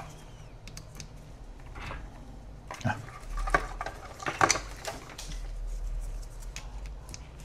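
Small handling clatter on a rubber bench mat: light clicks and rustles as a coiled USB-C cable and an inline USB-C ammeter are set down and plugged in. The clicks come scattered and irregular, with the busiest stretch a few seconds in.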